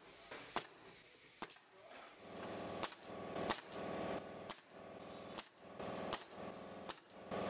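A DeWalt pneumatic nail gun firing nails into pine tongue-and-groove cladding, about eight sharp shots roughly a second apart.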